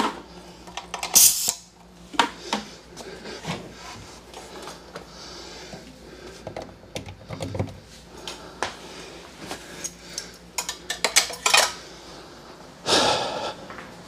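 Irregular clinks, knocks and light scraping of things being handled, with a short hissing scrape about a second in and a longer rustling scrape near the end.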